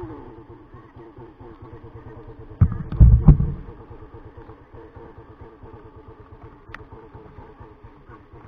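Sigma 250cc motorcycle engine dropping back from a rev to a steady idle. A few loud, sudden thumps come about three seconds in.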